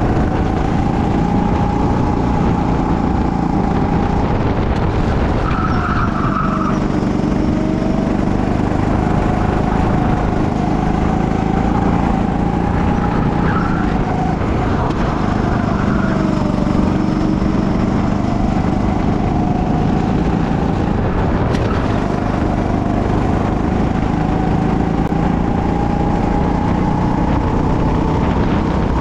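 Go-kart engine running hard on track. Its pitch repeatedly drops and climbs as the kart slows and accelerates, with a long steady rise near the end.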